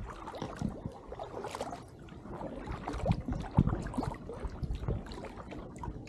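Double-bladed paddle strokes of an inflatable kayak dipping and splashing in river water, with irregular drips and small splashes over a low wind rumble on the microphone.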